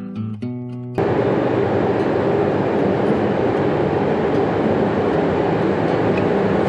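Acoustic guitar music cuts off about a second in. A loud, steady running noise of an approaching train follows, without pause.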